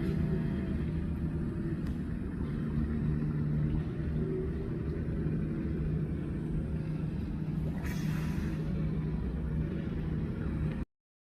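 A steady low rumble with a hum that cuts off abruptly near the end.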